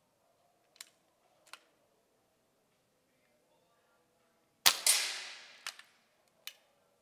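A single shot from a BSA R10 Gold Star SE .177 pre-charged pneumatic air rifle, about two-thirds of the way in: a sharp crack whose sound trails away over about a second. A few light clicks come before and after it.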